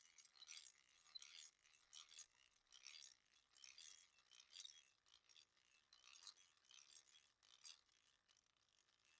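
Faint rhythmic whirring rasps from the gears of a hand-cranked drill as its crank is turned, about one to two a second and growing fainter near the end, twisting a rope strand.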